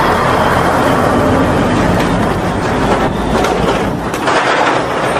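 Semi-truck's diesel engine running as the tractor-trailer drives past and pulls through a turn, a loud steady engine sound mixed with road noise.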